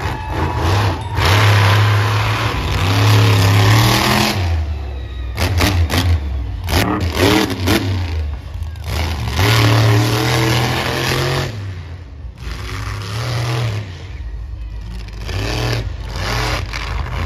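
Monster truck engine revving hard in repeated surges, the pitch rising and falling with each burst of throttle, with a few sharp bangs about five to seven seconds in.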